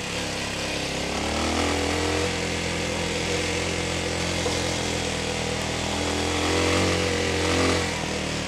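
TDR 300 dirt bike engine running under throttle on a dirt trail. Its pitch rises about two seconds in, holds, climbs again near the end, then eases off. An even rush of wind and tyre noise runs under it.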